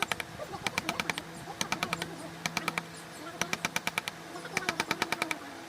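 Quick, light hammer taps on a wood-carving chisel, cutting sheesham wood. The taps come in short runs of about ten a second, several times over.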